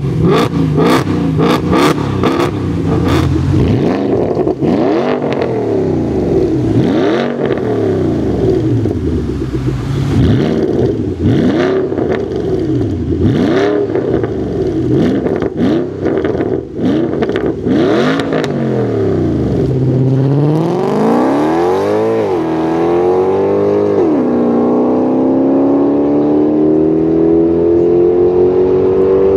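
High-performance car V8 engines revved in a string of blips, the pitch climbing and falling over and over, with sharp exhaust pops in the first few seconds: first a Mercedes C63 AMG, then a Porsche Panamera Turbo S. Near the end a car accelerates hard, with two upshifts followed by a long rising pull.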